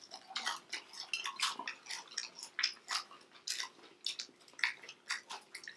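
People chewing food close to the microphone: an irregular run of short clicking and smacking mouth sounds.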